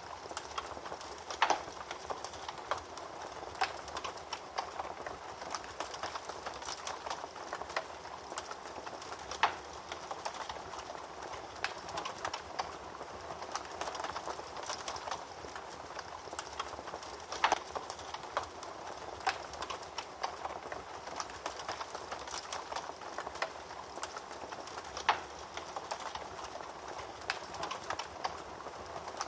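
Wood fire burning in a fireplace: a steady soft rush of flames with constant crackling, and a few louder sharp pops now and then.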